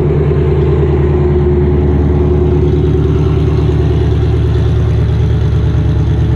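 Dodge Charger R/T's 5.7 HEMI V8 idling steadily through long-tube headers, catless mid pipes and straight pipe, a loud, deep exhaust note.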